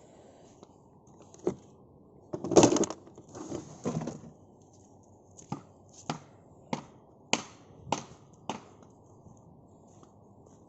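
Hammer striking old wooden boards to knock them apart: one knock, a louder clatter of wood about two to four seconds in, then six even blows a little more than half a second apart.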